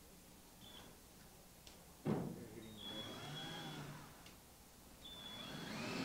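Cordless drill driving 1¼-inch screws into a wooden wind stop. The motor starts sharply about two seconds in, its whine rising and falling over a couple of seconds, then runs up again near the end.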